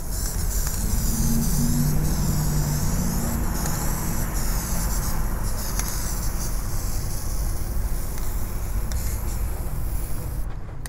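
Aerosol spray can hissing steadily as clear varnish is sprayed onto a painted wall, over a steady low rumble with a deeper hum in the first few seconds.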